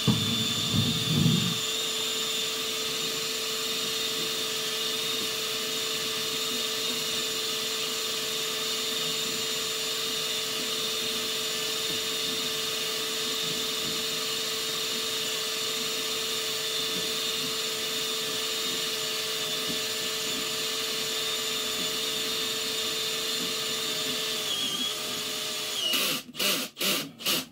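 Drain-cleaning machine motor running steadily with a constant whine while its line works in a root-clogged clay sewer pipe, then dropping in pitch and stopping about two seconds before the end, followed by a few uneven knocks.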